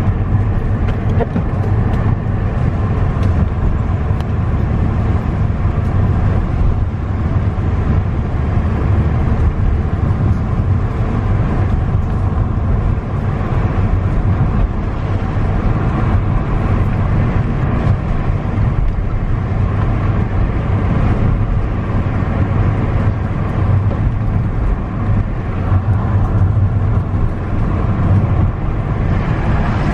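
Steady low rumble of a car driving, heard from inside the cabin: engine and tyre noise on a wet paved road.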